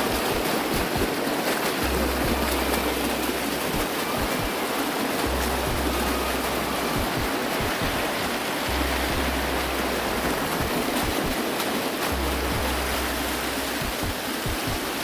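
Rushing water of a small waterfall, a steady full-range hiss and splash.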